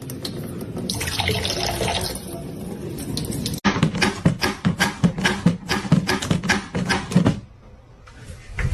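Water running, like a tap into a sink. After a sudden break, a quick run of short taps or clicks, several a second, which stops near the end.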